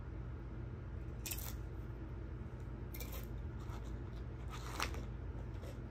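Eating sounds: three short, crisp crunches about a second and a half apart, typical of biting into a crunchy snack such as tortilla chips, over a steady low hum.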